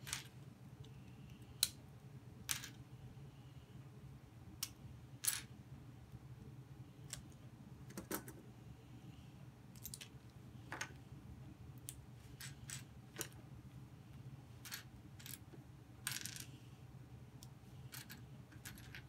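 LEGO plastic bricks clicking and snapping as they are pried apart and handled: a string of short, sharp clicks at irregular intervals, over a low steady hum.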